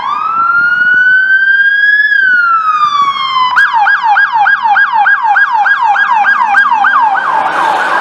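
Sheriff's patrol SUV siren: one slow wail rising and falling in pitch, then switching about three and a half seconds in to a fast yelp, a quick falling sweep repeated about three to four times a second.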